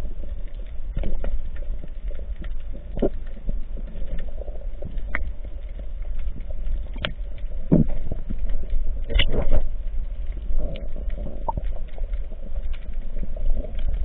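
Underwater ambience heard through a camera's waterproof housing on a coral reef: a steady low rumble with scattered sharp clicks and crackles, and a few louder knocks about eight and nine seconds in.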